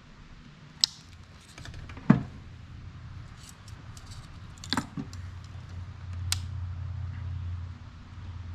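A few sharp clicks and knocks of small hard objects being handled, the loudest about two seconds in, over a low steady hum that gets louder from about six seconds in.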